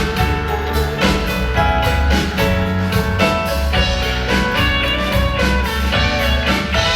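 Live band playing an instrumental passage with no singing: drum kit keeping a steady beat under bass and guitar.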